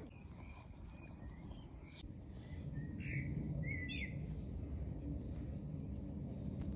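Outdoor ambience: small birds chirping in short calls, over a low rumble that grows louder about two and a half seconds in.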